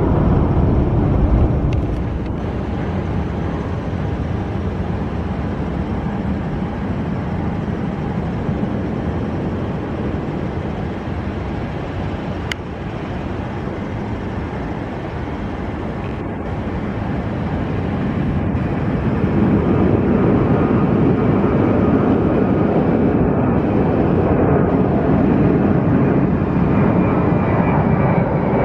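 Jet airliner engines: a Boeing 767 freighter's engines as it climbs away, then from about twenty seconds in a Boeing 737's engines at takeoff thrust on its takeoff roll, louder, with a whine that rises in pitch near the end.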